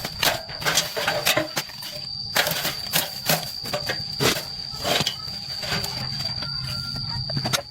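Irregular sharp clicks and knocks of hand tools working on car parts, several a second, over a steady high-pitched insect chirr.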